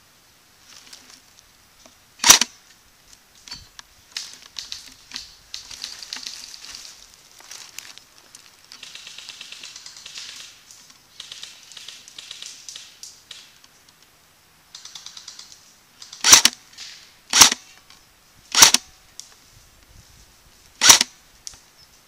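Single sharp airsoft gun shots close to the microphone: one about two seconds in, then four more about a second apart near the end. Softer rustling and crackling runs between them.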